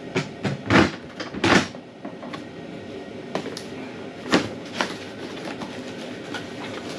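Handling noises: several sharp knocks and clunks in the first two seconds as the fridge-freezer's lid is set back in place, then a few lighter knocks and rustles as a small cardboard box is picked up and its flaps opened, over a steady background hiss.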